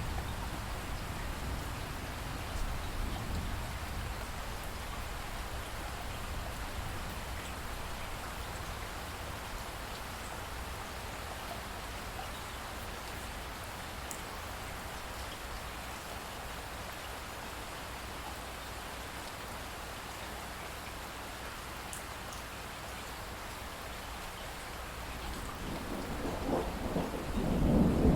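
Steady rainfall with a low rumble of thunder underneath. Near the end a thunder roll builds and grows loud.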